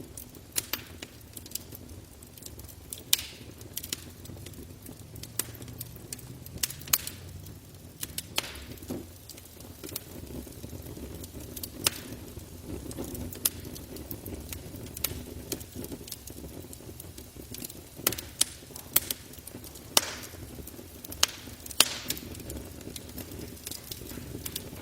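Wood campfire crackling, with sharp irregular pops and snaps, a few of them loud, over the steady low rumble of the flames.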